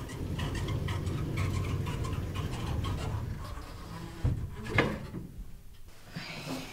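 A low rumble swells and holds for about four seconds, then two sharp thumps about half a second apart, the second louder, followed by a brief lull and faint rustling near the end.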